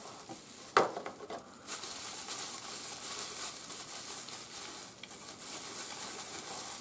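Plastic bubble wrap crinkling and crackling steadily as it is handled and unwrapped, after a sharp knock about a second in.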